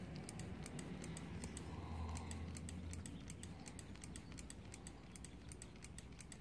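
Faint, rapid, irregular clicking of a GY6 scooter's hydraulic brake lever being flicked and tapped over and over, working air bubbles up out of the brake line during bleeding.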